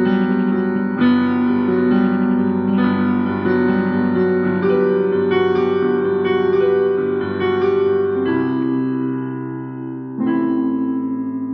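Piano-style keyboard music: chords with single notes moving over them. A chord is held from about eight seconds in, and a new chord is struck near the end.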